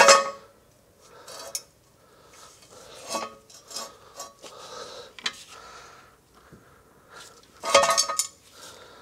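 Metal tools and parts clanking and clinking against each other in a string of separate ringing knocks. One loud clank comes at the start, and a cluster of loud clanks comes about eight seconds in.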